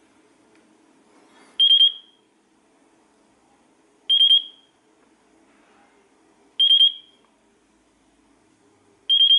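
FrSky Taranis radio transmitter beeping in bind mode: a short burst of quick, high-pitched beeps repeating about every two and a half seconds, four times, while it binds to the receiver.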